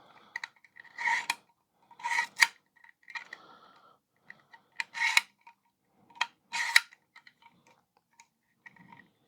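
Hard plastic vacuum brush nozzle being handled and worked: rubbing and scraping bursts with sharp clicks, about five times over several seconds, as its clip and brush part are moved.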